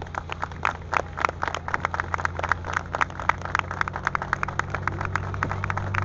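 Small two-bladed helicopter running on the ground: a steady engine hum with the rapid, regular chop of the turning rotor blades. The hum strengthens near the end.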